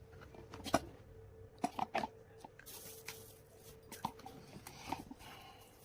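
Faint scattered clicks and taps, a few at a time, with a brief hiss about halfway through, over a faint steady hum.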